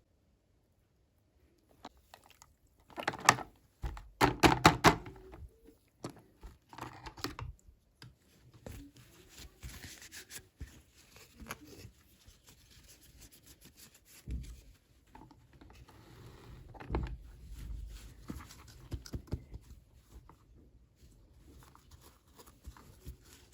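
Hands unboxing small plastic toy pieces and packaging: clusters of sharp clicks and taps, loudest a few seconds in, then rustling with a few soft thumps.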